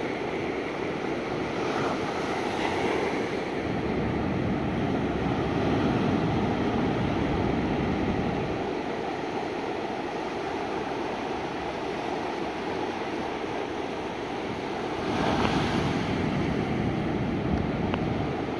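Ocean surf breaking on a sand beach: a continuous wash of waves that swells louder as waves crash, around two seconds in, again near six seconds and again around fifteen seconds.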